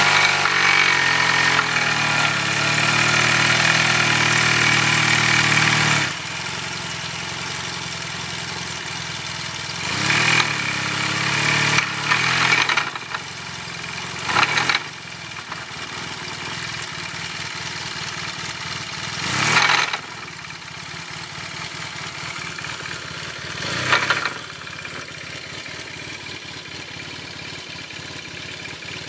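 Yamaha TMAX scooter's parallel-twin engine held at raised revs for about six seconds, then idling with several short blips of the throttle. The knock it makes is from worn crankshaft bearing shells.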